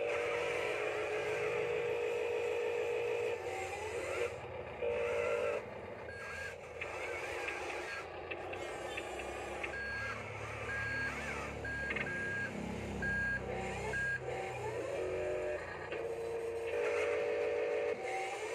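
HuiNa radio-controlled toy wheel loader's electronic sound module playing, with its reversing beeper sounding a short high beep about once a second in the middle. At the start and near the end there are stretches of a steady electronic buzzing tone, and a low rumble comes from its electric drive in the middle.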